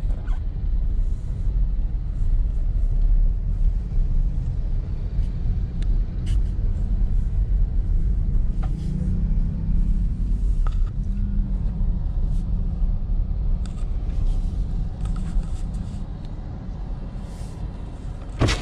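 Car driving in traffic, heard from inside the cabin: a steady low rumble of engine and tyres, with a few faint ticks and a sharp click near the end.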